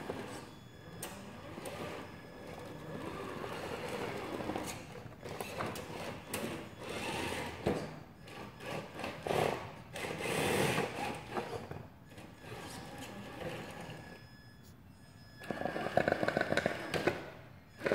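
Traxxas TRX-4 RC crawler's electric motor and gearbox whirring in uneven bursts as it climbs over other RC cars, with knocks and scrapes of tyres and plastic bodies. The motor runs louder for a stretch near the end.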